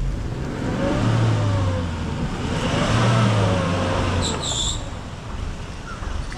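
SUV engine revving hard as the vehicle pushes up a deeply rutted mud road. The revs rise and fall twice.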